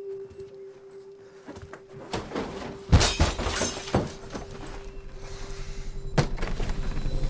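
A television set being smashed: a loud crash of shattering glass about three seconds in, a second crash about a second later, and a sharp knock near the end, over a held music tone.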